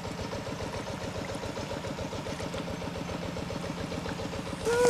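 A small engine running steadily with a fast, even beat. Just before the end a loud call sweeps down in pitch.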